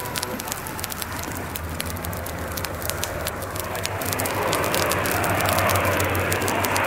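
Sound effects of a forest fire crackling, with the drone of water-bombing planes' propeller engines swelling from about four seconds in, played over the exhibit's loudspeakers.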